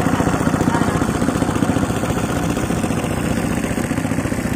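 Small Gambino boat engine running steadily under way, a fast even firing beat with no change in speed.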